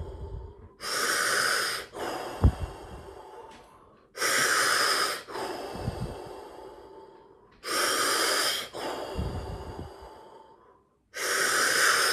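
A man's deep, forceful breaths through the mouth in a steady rhythm: four loud rushes of air about a second long, roughly every three and a half seconds, each followed by a longer, softer breath that fades away. A short low thump comes about two and a half seconds in.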